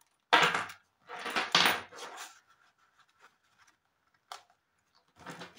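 Zip of a cash-envelope wallet pulled open in two quick strokes, about half a second and a second and a half in, then faint rustling and a small click as the wallet and banknotes are handled.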